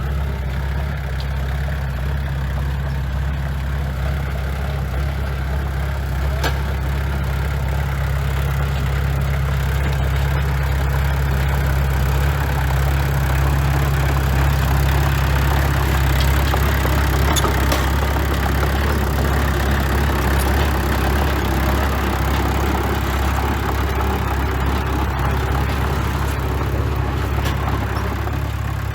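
Heavy construction-machine diesel engine running steadily with a low, even hum, growing a little louder and rougher about halfway through, with a few faint clicks.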